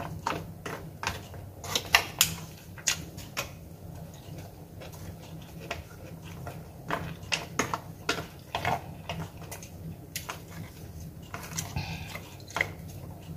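Chopsticks clicking and scraping against a foil takeaway tray of noodles, a scatter of irregular light taps and clicks, with the mouth sounds of eating, over a steady low hum.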